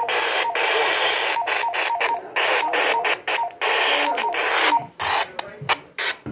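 Weather radio static: a loud, even hiss through a small radio speaker that keeps cutting out for an instant, with faint short beeps in it, as a weak station fails to come in clearly.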